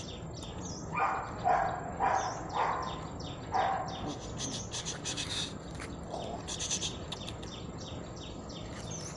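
Young pit bull dog hanging by its jaws from a tug toy, making about five short vocal bursts in the first four seconds, then quieter.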